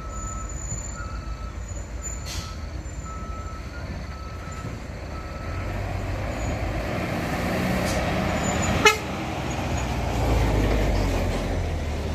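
A box truck's diesel engine comes down the grade toward and past the microphone, its low rumble building from about halfway through. There is one sharp click just before it passes closest.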